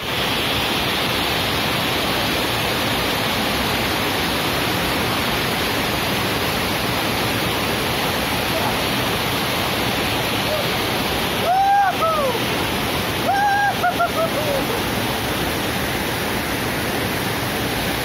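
Rushing mountain stream pouring over boulders in a whitewater cascade, a steady roar of water. About two-thirds of the way through, a high voice calls out twice briefly over the water.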